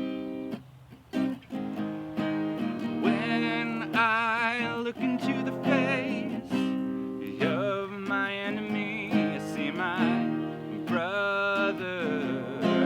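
Acoustic guitar strummed to accompany a song, with a voice singing over it from about three seconds in.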